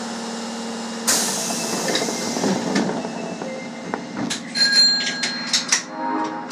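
Osaka subway Tanimachi Line train heard from the cab: a sudden hiss of air about a second in, then a run of sharp clicks and clanks over a steady low hum.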